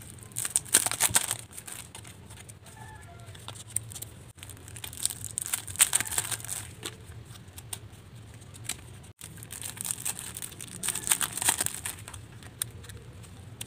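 Clear cellophane packaging on memo pads crinkling as it is handled and peeled open, in three bouts a few seconds apart. A few faint short chirps sound in the background.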